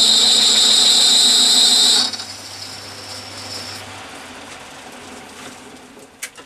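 Metal lathe running at full power with a parting-off tool cutting into a thick steel bar, a loud high-pitched whine over a low hum. The cut stops suddenly about two seconds in; the machine then runs on briefly and winds down, with a few light clicks near the end.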